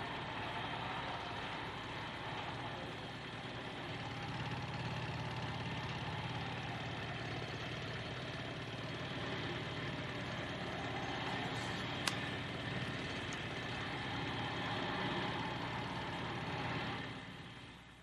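Steady engine and machinery drone of a construction-site background, with one sharp click about twelve seconds in. It fades out near the end.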